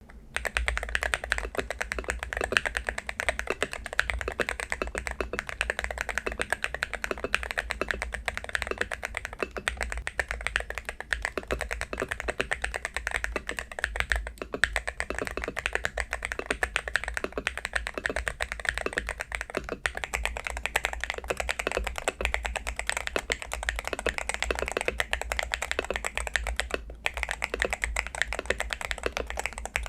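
Continuous fast typing on an AULA Hero68HE Hall-effect magnetic-switch keyboard, many keystrokes a second, with short pauses about halfway through and near the end.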